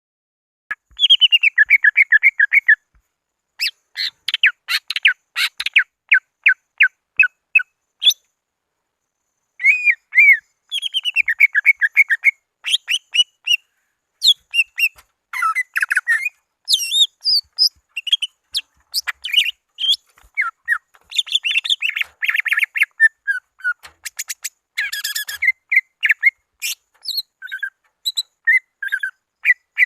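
Greater green leafbird (cucak ijo) singing a loud, fast, varied song of chirps, trills and whistled notes in phrases separated by brief pauses. This is its call to a rival.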